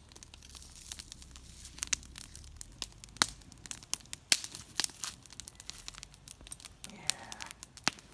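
Wood campfire crackling, with irregular sharp pops and snaps over a faint hiss.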